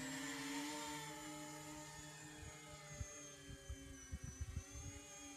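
Electric motors and propellers of an E-flite Convergence RC VTOL plane whining as it flies a low pass. The pitch drops slightly as it goes by, then the whine steadies and fades as the plane flies off. A few low thumps hit the microphone in the second half.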